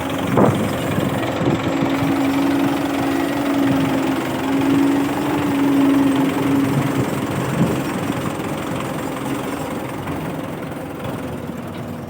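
Tractor-driven wheat thresher running: a continuous mechanical clatter and engine drone, with a steady hum standing out for several seconds near the start and a couple of sharp knocks.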